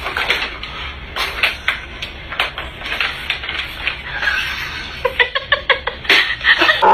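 Plastic cat track-ball toy clattering and knocking against a wooden floor as a cat struggles with one of its rings stuck around its neck: a run of irregular clicks and rattles, quickening about five seconds in and again near the end.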